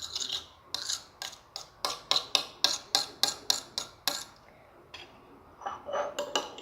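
Spoon clicking against a bowl as a slime mixture is stirred, in quick regular strokes of about four a second that stop about four seconds in, with a few lighter clicks near the end.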